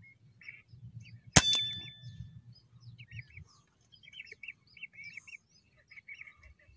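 A single gunshot about a second and a half in, sharp with a brief ringing tail, fired at whistling ducks; one bird is hit. Whistling ducks keep calling with short, repeated whistled chirps before and after the shot.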